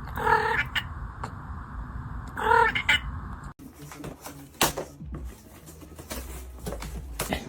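Two short animal calls, each a steady single pitch, about two seconds apart, followed by scattered knocks and clicks.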